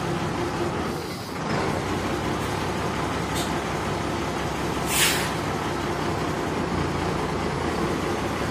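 Engine of the mobile shop truck running steadily as it is driven in close, with a short hiss about five seconds in.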